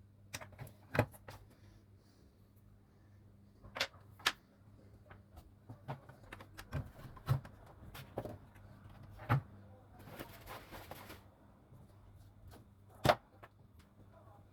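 Scattered small clicks and taps of hand tools working on a circuit board during an SMD resistor replacement, with a hiss of about a second near the middle, over a faint steady low hum.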